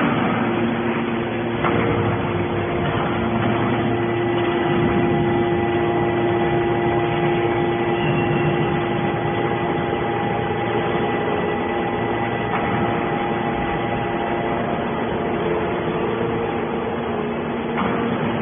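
Front-discharge hydraulic scrap iron baler running: a steady machine hum with a steady whine through it. There is a knock about two seconds in and another near the end.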